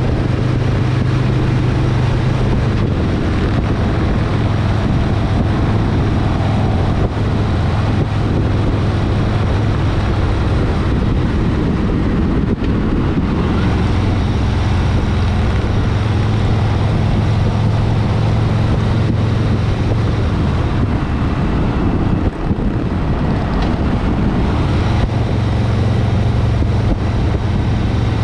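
Harley-Davidson V-twin motorcycle engine running at riding speed, with wind rushing over the microphone. Its low drone shifts in pitch and strength now and then, dropping a little about three seconds in and easing for a stretch before coming back.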